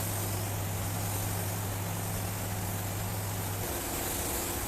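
A steady low machine hum under an even hiss, with the hum dropping away and the sound changing about three and a half seconds in.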